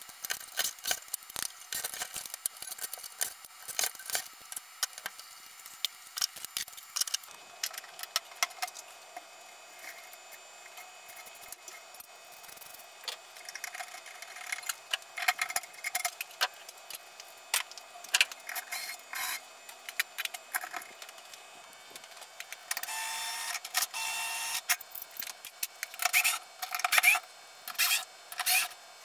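Clicks, taps and rattles of metal electrical boxes, screws and wiring being handled and taken down from a ceiling. In the second half a cordless drill/driver runs steadily for about two seconds, then in several short bursts near the end.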